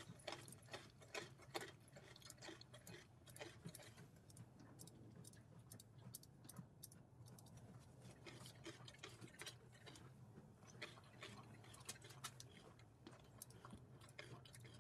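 Scissors snipping through a horse's mane: faint, irregular clicks, often several a second, over a faint steady low hum.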